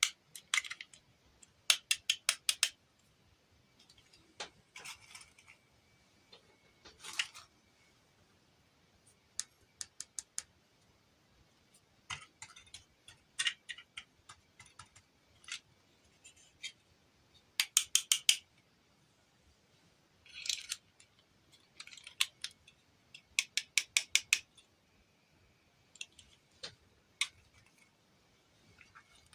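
Small plastic miniatures and packaging being handled: quick clusters of sharp clicks and taps with short quiet gaps between them.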